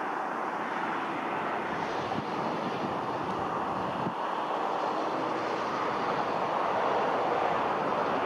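Boeing 747-8 freighter's four GEnx jet engines on the landing rollout: a steady broad rush of jet noise that grows slowly louder.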